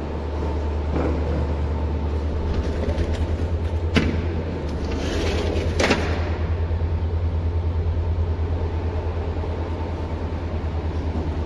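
Low, fluttering wind rumble on a phone microphone at an open window. About four seconds in there is a sharp click, and around six seconds a longer scrape, as an aluminium-framed sliding glass window is pushed open.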